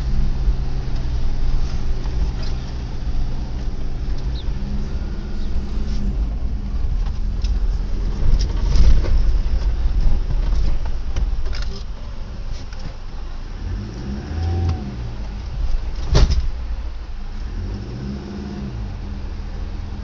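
4x4 vehicle's engine running as it drives a rough dirt track, heard from inside the cab, with knocks and rattles from the bumps. The engine pitch rises and falls a couple of times in the second half, and a sharp knock comes about three-quarters of the way through.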